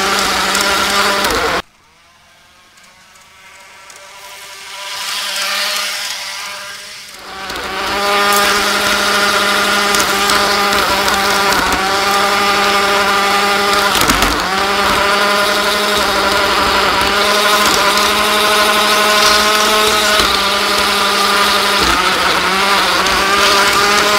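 Model locomotive's motor and gears whining as it runs fast along the track. The sound cuts out suddenly early on and builds back up over several seconds, then runs steadily with two brief dips in pitch as the train eases off and picks up again.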